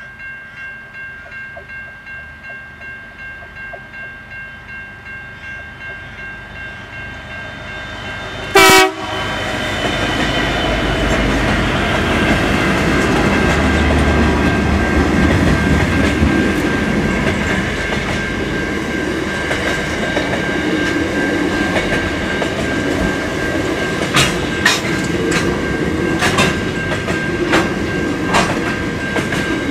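Freight train hauled by two diesel locomotives: a rhythmic throb as it approaches, a brief, very loud burst as the locomotives reach the microphone about nine seconds in, then the steady loud rumble of the wagons rolling past, with sharp wheel clacks over rail joints near the end.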